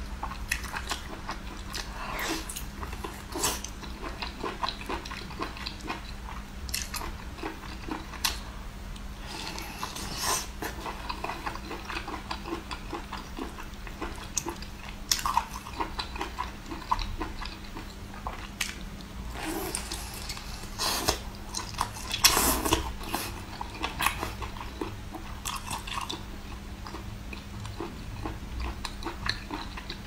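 Close-up eating sounds: a person biting and chewing cooked octopus, with irregular wet clicks and crackles, loudest about three-quarters of the way through. A faint steady hum runs underneath.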